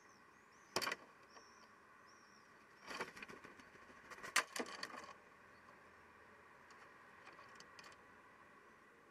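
A single sharp click about a second in, then a cluster of clicks and scraping knocks lasting about two seconds, loudest around four and a half seconds in, with a few faint ticks near the end.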